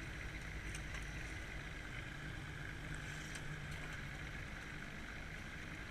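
Boat motor running steadily at low speed, with water and wind rushing past the moving boat.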